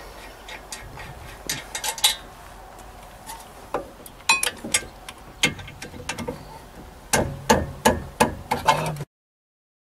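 Hammer blows: scattered sharp strikes that come faster and heavier about seven seconds in, then the sound cuts off suddenly.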